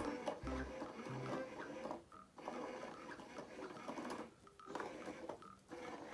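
Small motorised cat toy running with a whirring, rattling clatter that breaks off briefly about three times.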